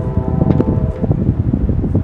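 Diesel locomotive multi-chime air horn giving one short blast, a chord of several steady tones that stops about a second in. Heavy wind buffets the microphone throughout.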